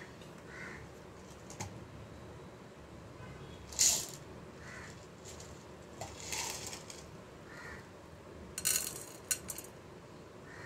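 Black peppercorns dropped into an aluminium pot, the small hard grains clicking on the metal bottom in a few short bursts. The last burst, near the end, is a quick scatter of several clicks.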